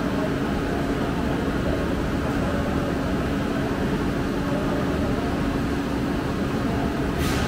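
Steady mechanical drone with a constant hum over a low rumble, and a short hiss near the end.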